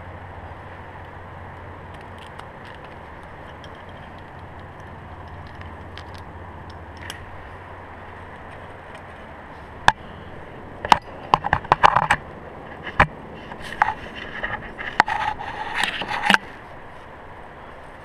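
Scraping and clicking of a climber's body and gear against granite in a crack, very close by: a run of sharp scrapes and knocks in the second half, over about six seconds, after a stretch of only steady low background.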